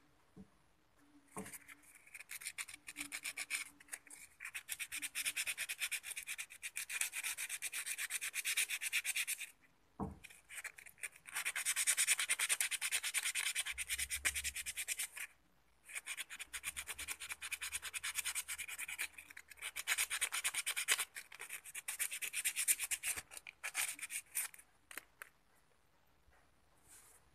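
Small blender part being rubbed down by hand in quick scraping strokes, in runs several seconds long with short pauses between, to ease a part that is a little stiff.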